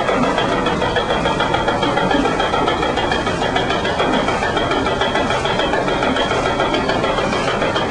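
Water-powered sawmill machinery running steadily, a continuous mechanical noise.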